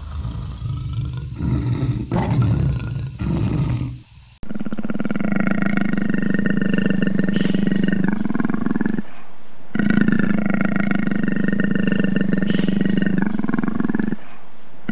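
Big cat growling: rough, broken growls for the first four seconds, then two long, steady growling calls of about four to five seconds each, with a short break between them.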